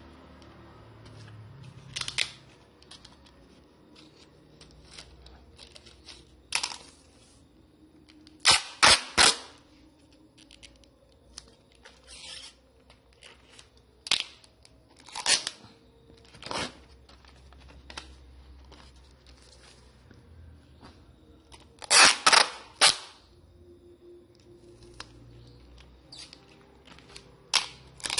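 Clear plastic wrap crackling and crinkling in short, sharp spurts as it is handled and pressed around a kraft paper envelope, some in quick runs of two or three.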